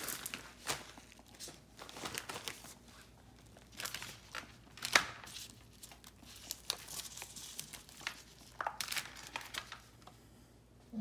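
Irregular crinkling and rustling of a plastic bag of brown sugar being shaken over aluminium foil, then of foil as a rack of ribs is handled, with one sharper tap about five seconds in.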